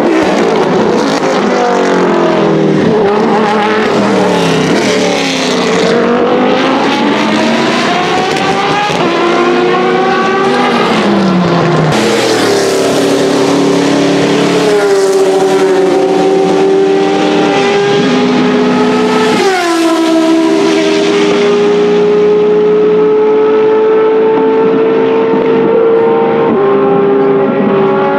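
Endurance race cars passing at speed one after another, among them the Dallara SP1 prototype's Judd GV4 4.0-litre V10 near the start. The engine notes climb and fall in pitch through gear changes and as the cars go by, with several sharp drops in pitch along the way.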